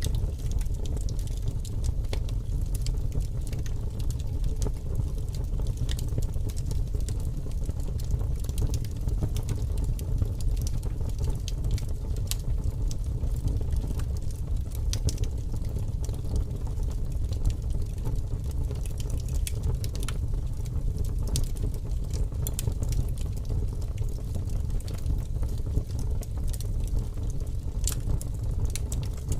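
Fireplace fire crackling, with frequent sharp, irregular pops over a steady low rumble.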